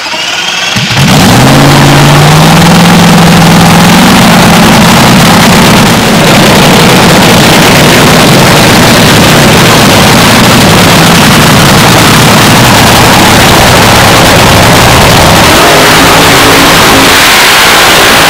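Supercharged nitromethane-burning engine of an AA/FA fuel altered drag car catches about a second in and runs very loud and rough at idle, then is revved hard into a burnout in the last few seconds.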